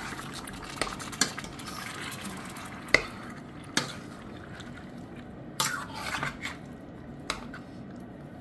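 A spoon stirring chicken pieces in a stainless steel pot, with scattered sharp clinks of the spoon against the pot, the loudest about three seconds in.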